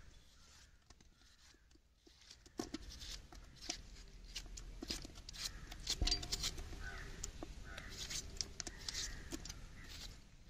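Kitchen knife cutting watermelon flesh away from the rind, with irregular sharp clicks and soft knocks as the blade works and chunks drop into a metal pot, starting a couple of seconds in.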